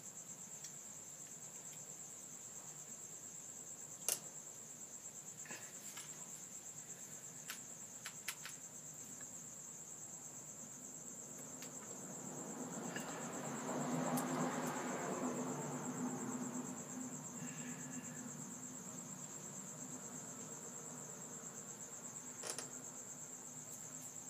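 Crickets trilling steadily: one constant high-pitched chirring. About halfway through, a duller rushing sound swells up and fades away under it, and there are a couple of single sharp clicks.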